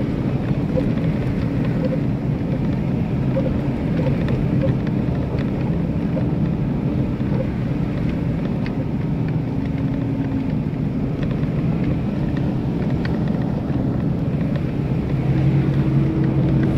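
Engine of an off-road vehicle running steadily under light load as it drives a rough dirt track, heard from inside the cab as a constant low hum, with a few faint clicks and rattles.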